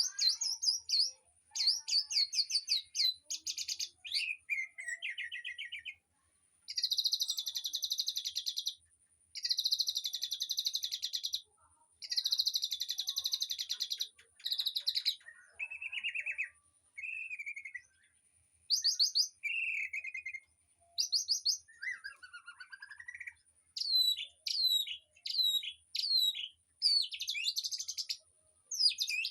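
Songbirds in an aviary singing in a steady run of phrases: fast trills lasting about two seconds each, shorter lower warbles, and quick down-sweeping whistled notes near the end. A thin, steady, high-pitched tone runs underneath.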